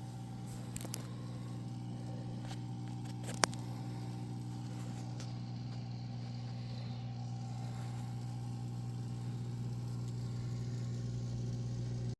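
A steady low mechanical hum, with a couple of light clicks, the sharpest about three and a half seconds in.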